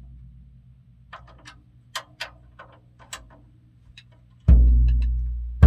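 Tama drum kit: a low drum's ring dying away, a few light sharp ticks, then a heavy low drum hit about four and a half seconds in that rings on, with another strike near the end.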